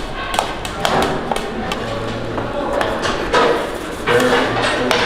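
Workshop clatter: irregular knocks and taps of tools and metal trays, with voices talking in the background.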